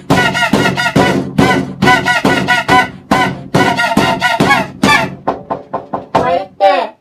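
Music: a quick, steady run of short plucked-sounding pitched notes over a beat, the notes turning thinner and faster about five seconds in.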